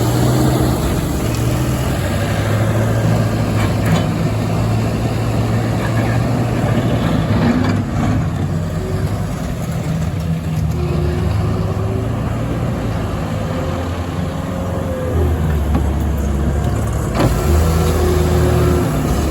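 Caterpillar skid steer's diesel engine running steadily under work, with a higher wavering whine over it and a few brief knocks.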